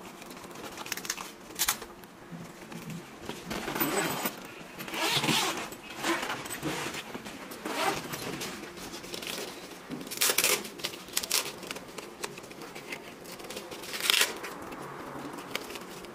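Padded fabric rifle bag being handled: the fabric rustles and crinkles as the flap and lining are moved, and hook-and-loop straps are pulled apart with several short, sharp rips.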